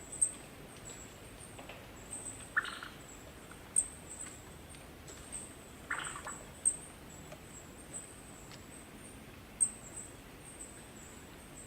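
Faint animal recording: a steady high thin chirping with a few sharp clicks, and two short calls about two and a half and six seconds in.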